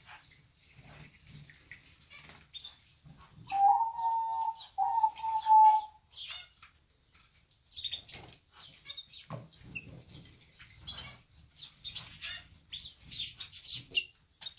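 Canaries bathing in a shallow water dish: short splashes and fluttering wings, with brief high chirps scattered throughout. About three and a half seconds in comes a loud, steady, mid-pitched tone lasting about two seconds, broken once in the middle.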